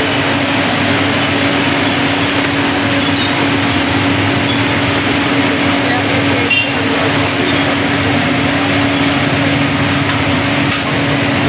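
Busy street ambience: indistinct crowd chatter and traffic noise over a steady, constant hum.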